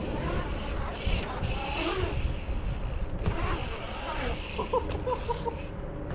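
Wind rumbling on a moving microphone with the noise of bike tyres rolling and carving on a concrete skatepark bowl, plus a couple of brief hissing rushes.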